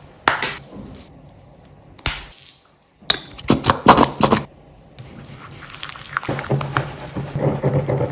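Objects being crushed with crackling and crunching: a few sharp cracks, a brief hush, then a loud cluster of cracks about three seconds in, giving way to a denser, steadier crackle with a low hum.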